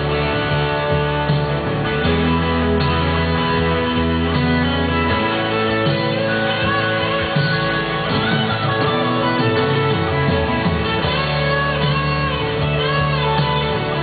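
Country band's instrumental break: guitars playing over a bass line, with a lead line that bends up and down in pitch from about halfway in.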